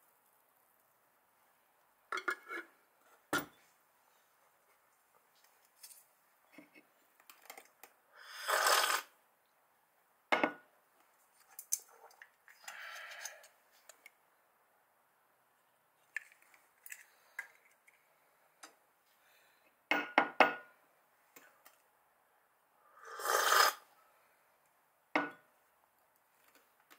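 Scattered clinks and knocks of a ceramic coffee mug and small kitchen items being handled, with a cluster of quick clinks near the end and two short rustling noises, each about a second long.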